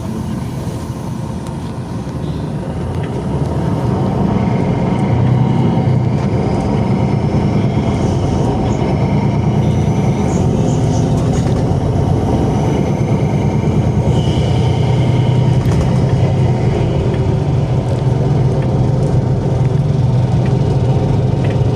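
MAN A26 bus's turbocharged diesel engine running under load, getting louder a few seconds in, with a high turbo whistle that rises and fades several times and turbo flutter.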